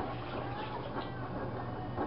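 LG washing machine running through its rinse with two pillows in the drum: a steady low motor hum with faint ticks and light squeaks.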